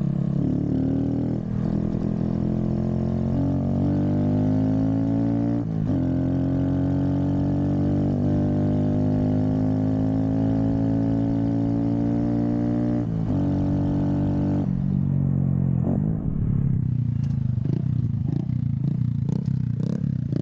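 Honda Grom's small single-cylinder engine heard from the bike on the move, pulling with its pitch slowly rising and dropping briefly at gear changes about 1.5, 6 and 13 seconds in. After about 15 seconds the engine note falls and goes uneven, with rattling over rough ground.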